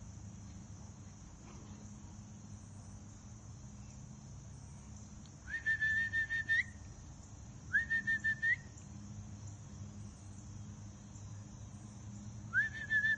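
A person whistling to call dogs: three short whistles, each held on one note and flicking upward at the end. The first comes about five and a half seconds in, the second about two seconds later, and the third near the end.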